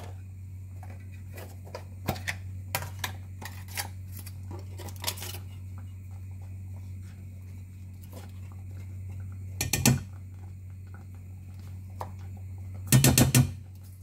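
Short clicks and taps of a utensil against a metal saucepan as butter is cut and added to the béchamel, ending in a quick rattle of taps about a second before the end. A low steady hum runs underneath.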